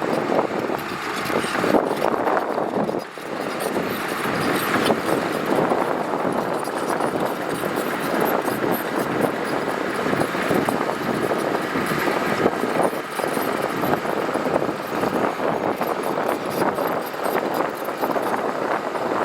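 Heavy earthmoving machinery running steadily at a gravel roadworks, with scattered knocks and a brief drop in level about three seconds in.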